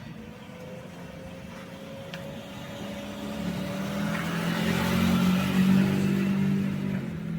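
A motor vehicle passing by: its engine grows louder over several seconds, is loudest about five to six seconds in, then fades away.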